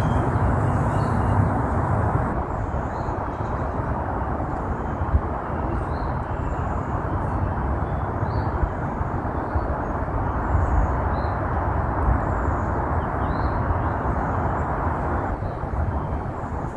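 Many honeybees buzzing in a steady, dense hum while flying around an open hive, with faint bird chirps.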